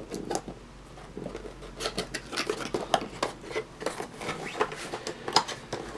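A cardboard box being handled and its packaging pulled out: irregular scraping, rustling and light knocks of cardboard.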